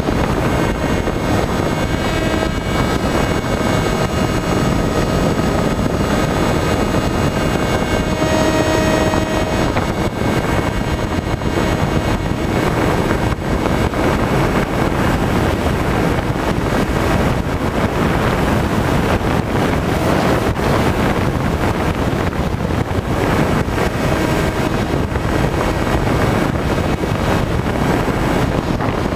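Electric motor and propeller of a Skywalker FPV model plane droning steadily, heard from its onboard camera, with heavy wind rushing over the microphone.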